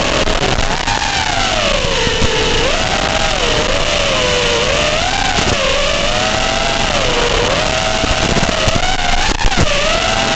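FPV racing quadcopter's brushless motors whining, the pitch rising and falling over and over with the throttle, over a steady hiss.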